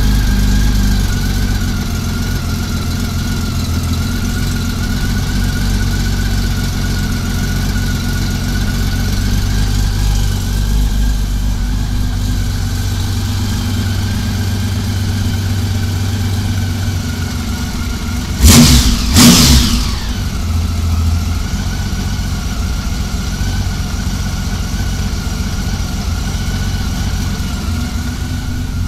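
Honda Valkyrie's 1520 cc flat-six engine idling steadily while its six carburetors are being synchronised. About two-thirds of the way through come two short, loud throttle blips, and then it settles back to idle.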